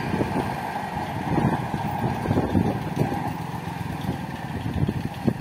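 Motorcycle engine idling close by and moving off, over a steady low rumble.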